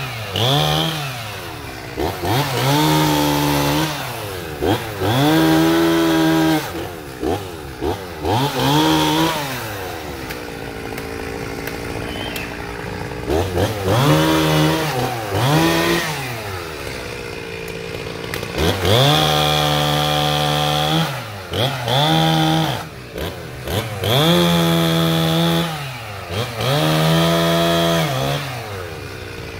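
Chainsaw engine revved to full throttle again and again in bursts of one to three seconds, dropping back to idle between them, as it cuts through branches; twice it sits at idle for a few seconds before revving again.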